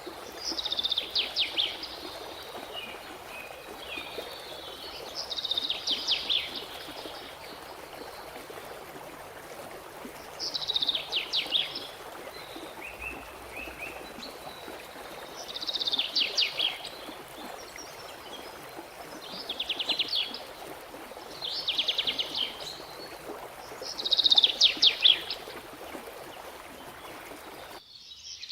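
A songbird singing a short, rapid trilled phrase about a second long, repeated seven times a few seconds apart, over a steady background hiss. The hiss cuts out abruptly near the end.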